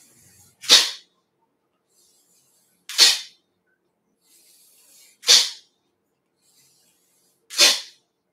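A person blowing air out hard through the nose four times, about every two and a quarter seconds, each a short sharp puff, with faint drawn-in breaths between: the explosive nasal exhalations of a Dao Yin breathing exercise.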